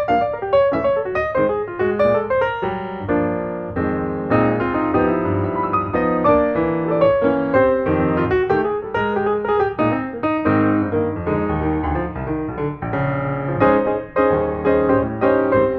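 Background piano music: a steady run of notes with chords beneath.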